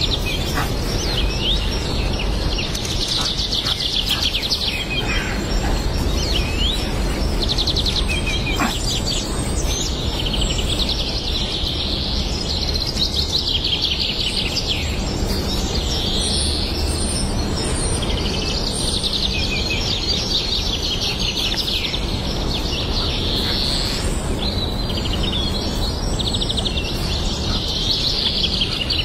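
Small birds chirping and trilling on and off throughout, over a steady low background rumble.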